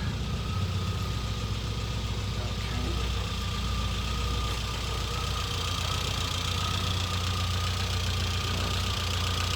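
Classic Mini Cooper's A-series four-cylinder engine idling steadily just after its first start-up following restoration, with a thin steady whine over the idle.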